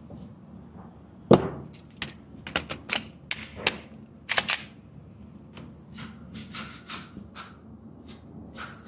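A string of sharp clicks and knocks at a shooting range, irregular and mostly quick. The louder ones bunch together in the first half, and fainter ones follow.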